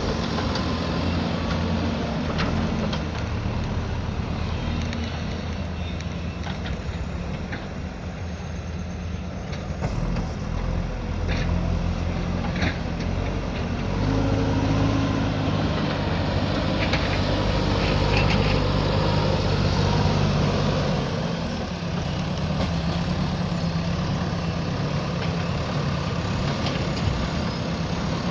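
JCB backhoe loader's diesel engine running under changing load, its pitch stepping up and down several times and louder in the middle, with a few short clanks.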